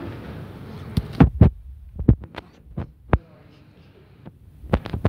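Handling noise on a handheld phone's microphone: a string of irregular, loud thumps and knocks as the phone is gripped and moved about, bunched in the middle and again near the end.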